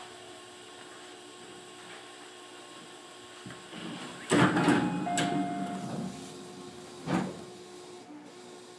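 Tobu 50000-series electric train at a station stop: a steady hum, then about four seconds in a loud mechanical clatter with a brief whir, and a sharp knock about three seconds later.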